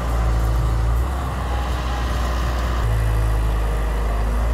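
Diesel engine of a Hyundai Robex 1300W wheeled excavator working under load while it digs, a steady low drone. Its note changes about a second in and again near three seconds as the load shifts.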